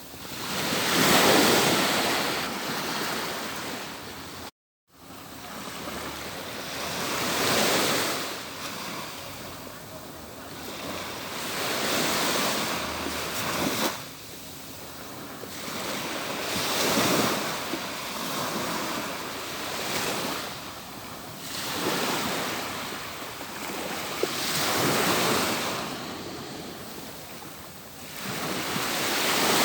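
Atlantic Ocean waves breaking and washing up a beach, a wave swelling and fading about every four to five seconds. The sound cuts out completely for a split second about four and a half seconds in.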